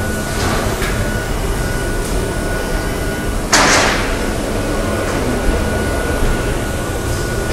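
Steady hum of workshop machinery with a faint high whine, broken about three and a half seconds in by a short, loud hiss that fades quickly.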